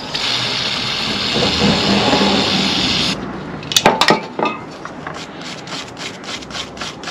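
Brake dust being cleaned off motorcycle brake caliper pistons: a steady hiss for about three seconds that stops abruptly, then a few sharp clicks of tools.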